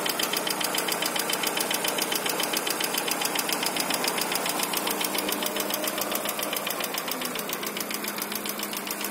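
Daewoo Nexia 16-valve engine idling on a cold start, with a fast, even ticking knock. The knock appears only while the engine is cold, and the owner suspects the hydraulic lifters.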